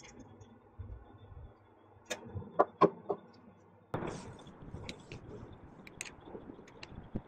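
Handling noise from a baitcasting reel and small tools on a work surface: a quick run of four sharp clicks and knocks about two seconds in, then a rustle with a few light clicks.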